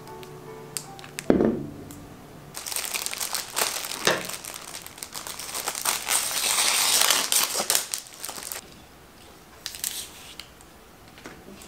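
Clear plastic flower sleeve crinkling and rustling as it is pulled open and off a bouquet of tulips, after a single thump about a second in. Near the end come a few softer rustles as leaves are stripped from the stems.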